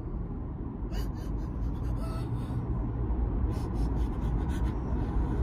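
Steady low car road rumble inside the cabin, with a young woman's breathy sobs and gasps a few times.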